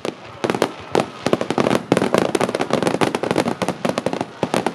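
Aerial fireworks bursting overhead: a fast, dense crackling of many small reports with several louder bangs mixed in.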